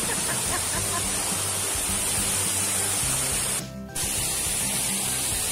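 Rushing water of a small waterfall, a steady hiss, with background music under it. The sound drops out briefly a little past three and a half seconds in.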